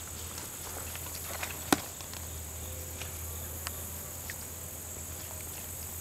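Steady high-pitched insect chorus, with a few light clicks, the sharpest just under two seconds in.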